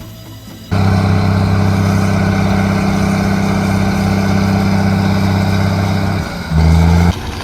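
Heavy log-hauling vehicle's engine running steadily at a constant pitch. Near the end it drops briefly to a deeper, louder note, then cuts off.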